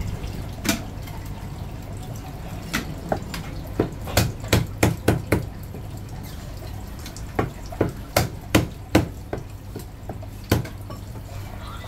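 Chinese cleaver chopping marinated goose on a thick round wooden chopping block: a dozen or so sharp knocks, bunched in quick runs of four or five, over a steady low hum.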